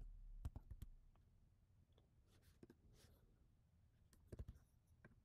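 Faint computer keyboard keystrokes over near silence: a few single key clicks, bunched about half a second in and again about four seconds in.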